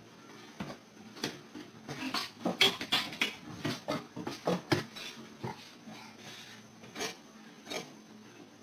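A pet door's flap knocking and rattling against its frame as a cat squeezes through it, in a string of irregular clacks that are thickest in the middle and thin out to a couple of single knocks near the end.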